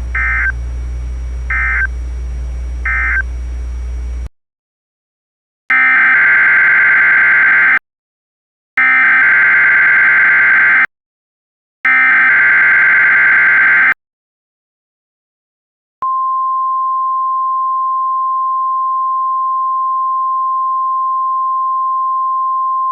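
Three short NOAA Weather Radio SAME end-of-message data bursts over a receiver's steady low hum. After a silent cut come three roughly two-second SAME header bursts of warbling digital tones, a second apart, then the steady 1050 Hz weather radio warning alarm tone starting about 16 seconds in.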